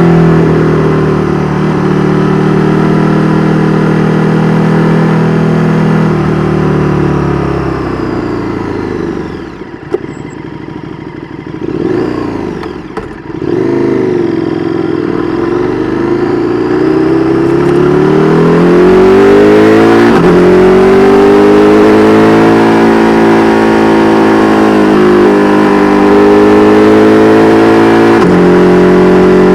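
2022 KTM 1290 Super Duke R Evo's V-twin running through an Austin Racing V3 Mini exhaust while riding. It holds a steady note at first, then drops in pitch and loudness as the throttle closes, with a single sharp crack about ten seconds in. From around the middle it revs back up in a rising sweep and settles into a steady, loud cruise.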